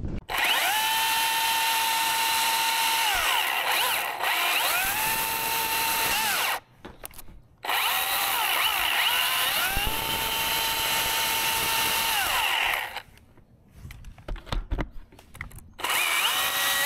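Milwaukee battery chainsaw running at a steady high whine, its pitch dropping each time it bites into the dead cherry trunk and recovering as it eases off. It stops briefly twice, gives a few short blips, then starts again near the end.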